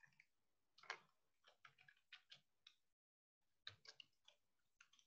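Faint clicking of computer keyboard keys as text is typed, in two quick runs with a short pause between.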